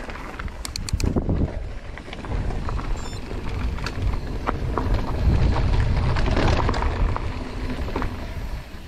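Mountain bike descending a rocky dirt trail: tyres rolling and crunching over dirt and stones, with scattered clicks and knocks from the bike rattling, under a low rumble of wind on the microphone. It grows louder about two seconds in.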